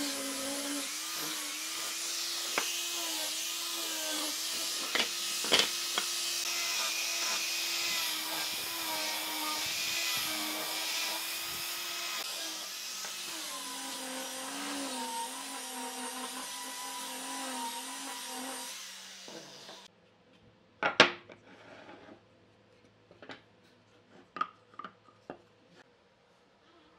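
Angle grinder with a sanding disc running steadily against wood, a high motor whine that drops slightly in pitch about halfway through. It stops a little over two-thirds of the way in, followed by one sharp knock and a few lighter clicks.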